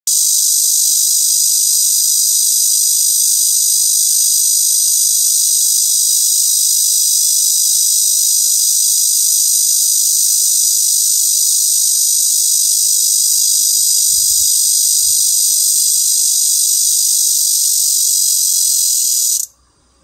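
Cicada singing: a loud, steady, unbroken high-pitched buzz that cuts off suddenly just before the end.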